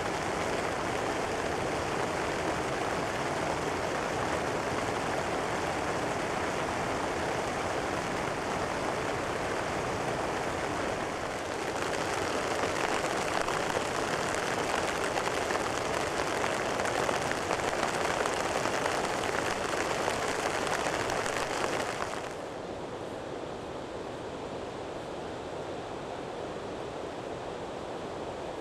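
Steady rushing of water from falling rain and a mountain river. It grows a little louder about 12 seconds in, then drops and becomes duller about 22 seconds in.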